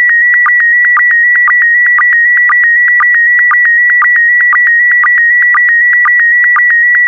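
SSTV PD120 image transmission: a steady electronic tone near 2 kHz, broken by short lower blips about twice a second, the line-sync pulses between scan lines.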